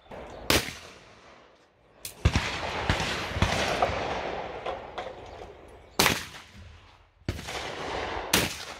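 Shotgun shots at clay targets: three sharp single reports, about half a second in, about six seconds in and near the end. Stretches of loud rushing noise fill much of the time between them.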